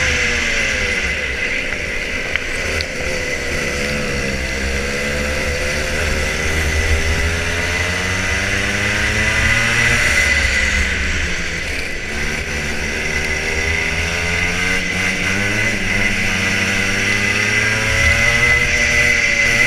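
Rotax Junior Max 125cc two-stroke kart engine at race pace, its revs climbing along the straights and falling away into the corners several times over, with a steady high whine running under it.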